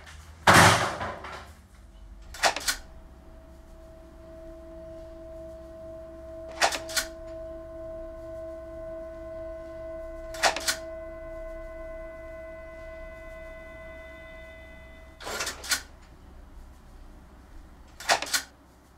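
A short noisy rush about half a second in, then a sharp double click every three to five seconds, five times, over quiet steady held tones.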